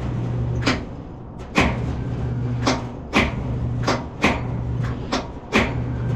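Starter solenoid of a Detroit Diesel 12V71 generator clicking in and out about four times, each engagement bringing a low steady hum that lasts under a second before the release click, while the engine does not turn over. The batteries are too flat to crank it.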